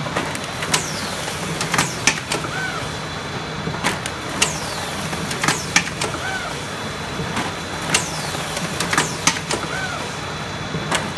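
Bandall automatic banding machine running, banding stacked food trays: a steady motor hum with sharp clacks and a quickly falling high whine that repeat about every three and a half seconds, once per banded stack.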